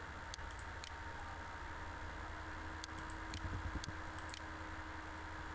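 A few faint computer mouse clicks over a steady low electrical hum, with a small cluster of clicks in the middle.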